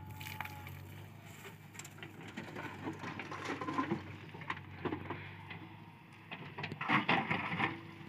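JCB 3DX backhoe loader's bucket working a pile of broken stone and rubble: rocks clattering and grinding in two spells, one around the middle and a louder one near the end, over a steady low engine hum.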